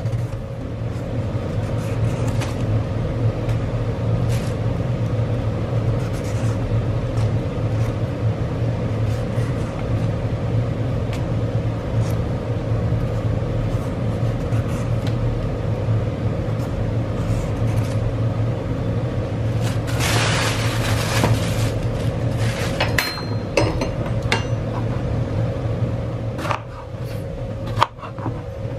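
A steady low mechanical hum, with a knife scraping the skin off a bottle gourd for a couple of seconds past the middle and a few sharp knife clicks on the cutting board near the end.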